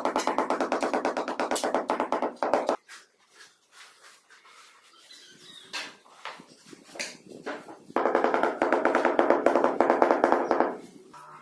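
Handheld electric tile vibrator buzzing on a large ceramic floor tile to bed it into the mortar. It stops a little under three seconds in, a few faint clicks and taps follow as the next tile is set down, and it buzzes again for about three seconds from about eight seconds in.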